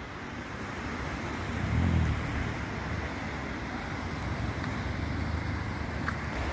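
Steady rushing of a fast-flowing mountain river over rapids, with a brief low rumble swelling about two seconds in.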